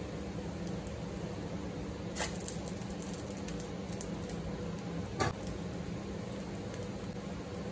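Corn cachapa batter cooking in a nonstick frying pan: a steady low hiss with a faint hum. There are two light knocks of the metal spatula against the pan, about two seconds in and just past five seconds in.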